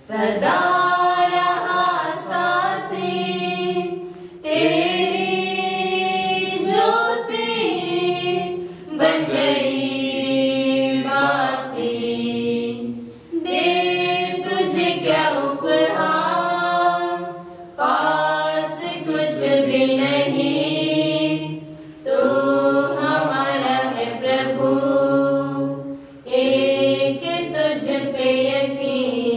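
Voices singing a hymn during the offertory of a Catholic Mass, in phrases of about four seconds, each ending with a short pause for breath.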